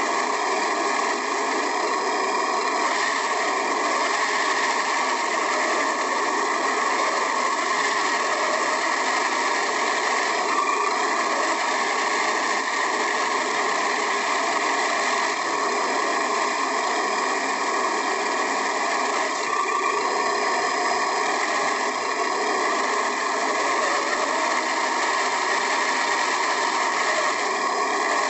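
Steady, unbroken running noise of an HG-P408 scale RC Humvee, picked up by a camera inside its cab.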